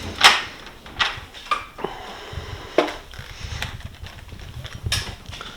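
Light knocks and clicks, about seven scattered over several seconds, from the steel drawers of a Snap-on Epiq tool box being handled between drawers.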